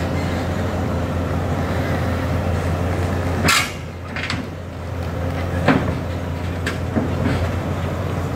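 Pindad PC200 excavator's diesel engine running steadily as the machine climbs onto a self-loader truck, with a sharp loud burst about three and a half seconds in and then a few short metallic knocks.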